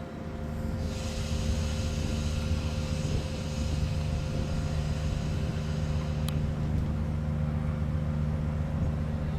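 Heavy machinery running with a steady low drone and hum, with a single sharp click about six seconds in.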